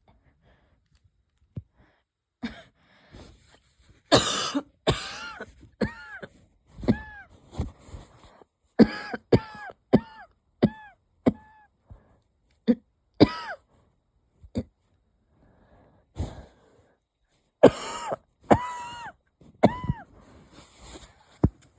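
A person's light, wheezy coughing in several bouts of short, quick coughs, many ending in a falling voiced tail. The uploader puts it down to a cold coming on or asthma flaring up.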